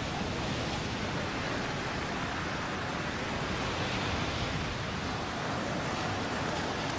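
Ocean surf: waves breaking and washing over the shore in a steady, unbroken rush.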